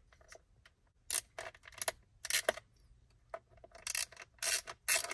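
A small Phillips screwdriver backing out tiny screws from a display housing: a series of short, irregular clicks and scrapes with brief pauses between them.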